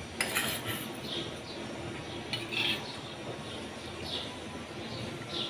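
A steel spoon clinking lightly against a small steel bowl while scooping liquid jaggery: a few quick clinks in the first second, then faint, scattered small clicks and scrapes.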